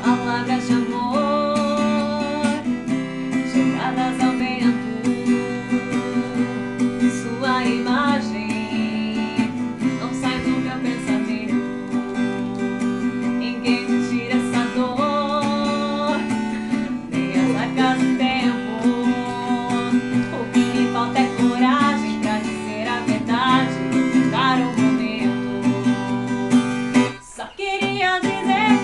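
Acoustic guitar music, strummed and plucked, playing a melody. There is a brief break about 27 seconds in.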